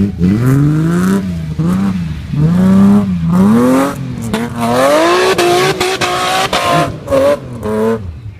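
Nissan Patrol GR off-road racer with a BMW M3 engine, revving hard under load as it climbs a steep bank. The pitch rises and falls with each throttle blip and climbs highest in a long rise about three to seven seconds in, then gives two short blips near the end.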